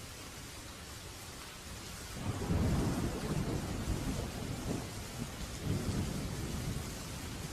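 Steady rain with a roll of thunder starting about two seconds in: a deep rumble that swells, dips, rises again and fades slowly toward the end.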